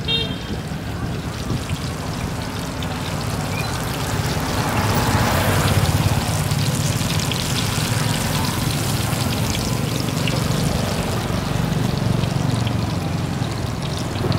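Battered snack sticks deep-frying in a large pot of hot oil, a steady crackling sizzle over a low steady rumble, a little louder from about four seconds in.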